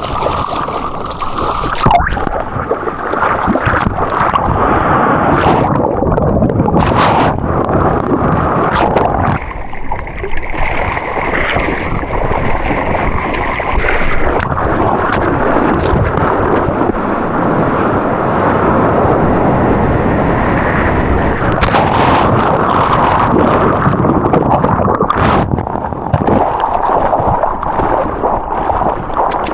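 Ocean surf water churning and splashing up close: a loud, muffled rush with sharp splashes now and then.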